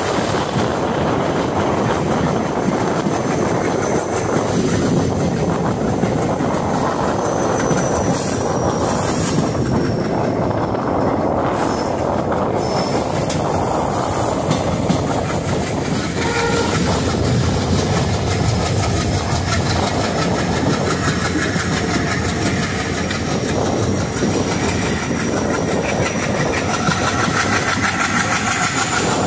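Passenger express train running, heard from on board: a steady noise of the wheels on the rails and the moving coaches. A faint high squeal slides in pitch twice, about a third of the way in and again near the end.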